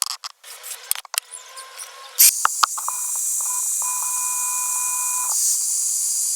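Aerosol can spraying in one long steady hiss of about four seconds. A few clicks and knocks from handling come before it.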